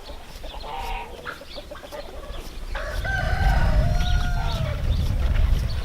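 A rooster crowing: a few short calls near the start, then one long crow that falls slightly at the end, about three seconds in, over a low rumble.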